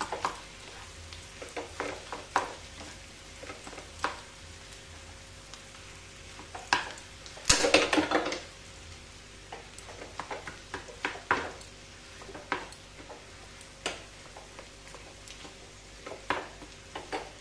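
Wooden spatula stirring and scraping mashed potato and fried onions in a frying pan, with irregular knocks against the pan over a light sizzle. A louder burst of scraping comes about seven and a half seconds in.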